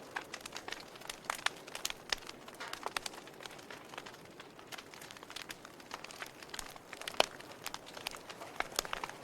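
Wood fire in a fireplace crackling: irregular sharp pops and snaps over a soft steady hiss, with one louder pop about seven seconds in.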